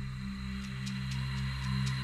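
Electronic dance music in a breakdown: sustained synth chords and a thin high tone, with the kick drum and deep bass pulled back and only light high ticks keeping time.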